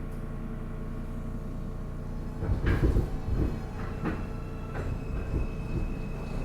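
Inside an R160A subway car with its air conditioning out: a steady electrical hum, then a run of heavy clunks and knocks starting about two and a half seconds in, followed by a steady high whine that comes in about two thirds of the way through.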